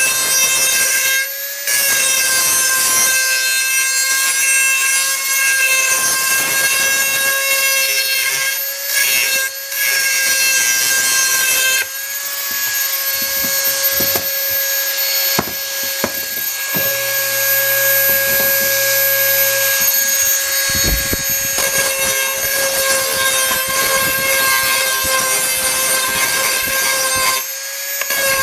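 Dremel 4000 rotary tool running with a steady high whine while its grinding bit rubs against a metal tool edge, sharpening it. The grinding dips briefly a few times where the bit comes off the work.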